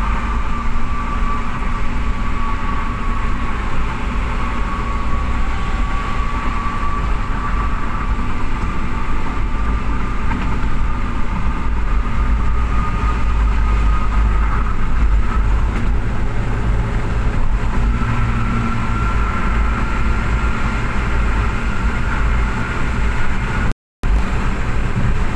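An engine running steadily with a strong low rumble and a faint whine that drifts slightly in pitch. The sound cuts out briefly near the end.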